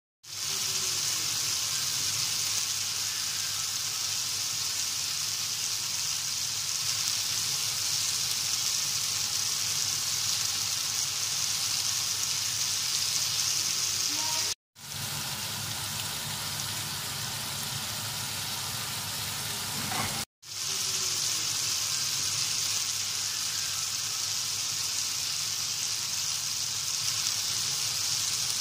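Meat skewers and sausages sizzling on a cast-iron griddle plate: a steady frying hiss, twice broken by a brief silent gap.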